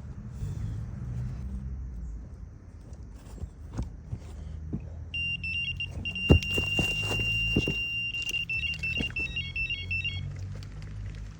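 Electronic carp bite alarm sounding a run: a single high tone comes in about five seconds in, holds continuously for a couple of seconds, then breaks into rapid beeps that stop about ten seconds in. This is the sign of a fish taking the bait and pulling line. Sharp knocks and clicks come with it, the loudest just as the tone becomes continuous, over a low steady rumble.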